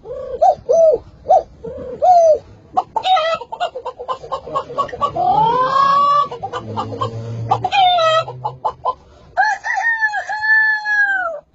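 A man imitating a chicken with his voice: a quick run of short clucks, then rising squawks, and from about two-thirds of the way in a long rooster-style cock-a-doodle-doo crow.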